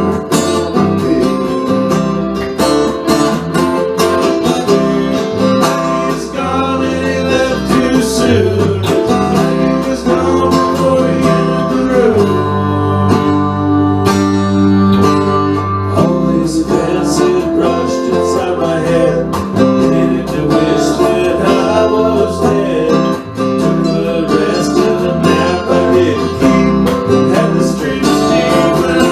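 Instrumental break of an acoustic country-style song: guitar playing with plucked-string picking and a steady rhythm.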